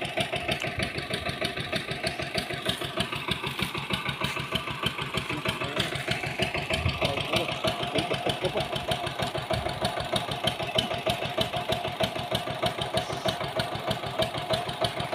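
A small engine idling steadily, with a rapid, even chug.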